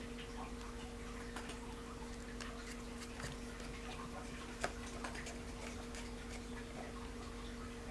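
Faint, irregular small clicks and taps of spinning-reel parts and tools being handled during a teardown, one a little louder about halfway through, over a steady low hum.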